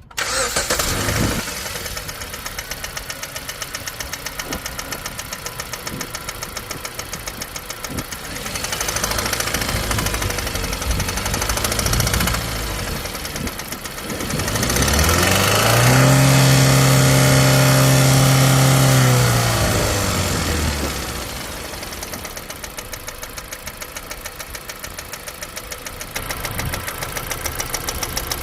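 2015 Jeep Compass 2.4-litre four-cylinder engine starting, then idling with a fast, steady ticking. It is revved up about halfway through, held there for a few seconds, and dropped back to idle with the ticking still there.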